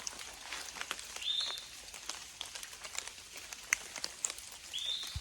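Rain dripping and pattering irregularly on forest foliage, with a bird giving a short call twice: about a second in and again near the end.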